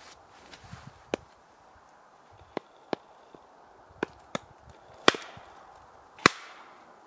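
Hatchet splitting firewood on a chopping block: a few light wooden knocks, then two sharp chopping strikes about a second apart near the end.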